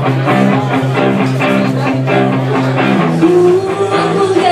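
Live rock band playing an instrumental passage: electric guitars, bass guitar and drum kit, with the chord changing about three seconds in.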